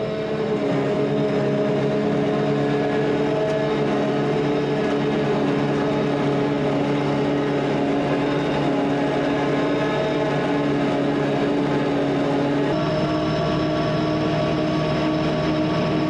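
Heavy farm machinery engine running steadily under load while sorghum is chopped, its pitch changing slightly near the end.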